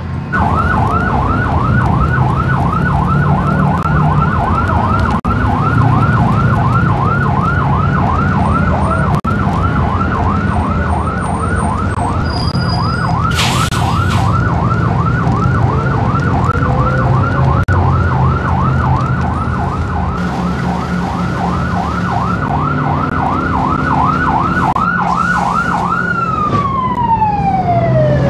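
Airport fire crash tender's siren in a fast warble, about three sweeps a second, over the rumble of the truck's engine. Near the end the siren is cut and its pitch slides down in one falling glide.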